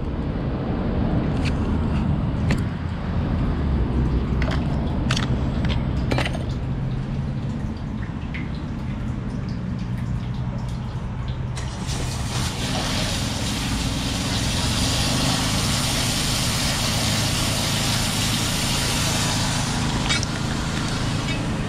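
A motor hums steadily the whole time. About twelve seconds in, water starts rushing from a hose with a strong hiss, which cuts off sharply about eight seconds later; a few sharp clicks and knocks come in the first six seconds.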